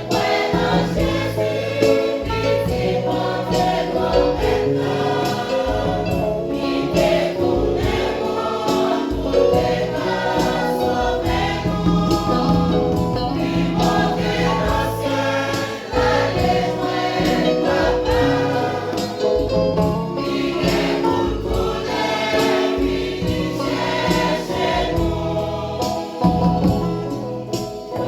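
Church choir singing a gospel hymn with instrumental accompaniment and a steady percussion beat.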